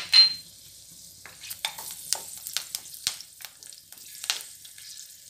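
Chopped green chillies sizzling and crackling in hot oil in a nonstick wok while a wooden spatula stirs them. A single loud sharp pop comes just after the start, then scattered spits and crackles over a steady sizzle.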